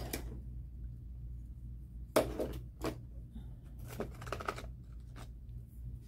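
Scattered clicks and taps of small craft supplies being handled, a paint bottle and a small paintbrush being picked up and readied, the sharpest about two seconds in, over a low steady hum.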